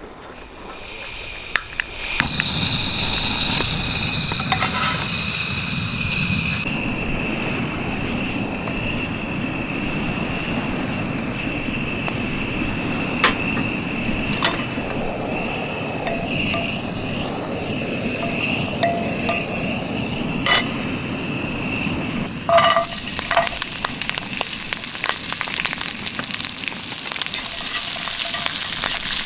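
Gas stove burner starting up about two seconds in and running with a steady hiss under a frying pan heating its oil, with a few light clicks. Near the end, cut green beans go into the hot oil and sizzle loudly as they are stirred.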